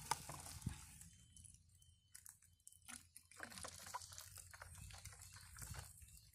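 Faint crinkling and handling of a plastic bag against a plastic PET bottle, then liquid pouring from the bag into the bottle from about 3 seconds in.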